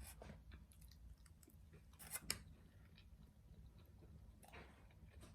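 Faint chewing and mouth sounds of someone eating, with a couple of louder crunchy bites about two seconds in and another shortly before the end.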